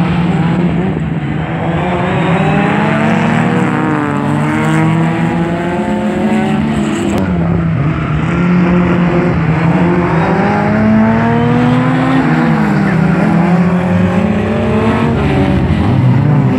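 Several folk-race (jokamies class) saloon cars' engines revving hard as the pack races past, the engine notes repeatedly rising and dropping as they accelerate and shift gears, overlapping one another.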